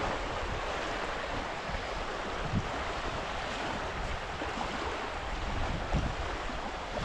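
Small waves lapping steadily on a sandy bay shore, with a couple of low wind bumps on the microphone.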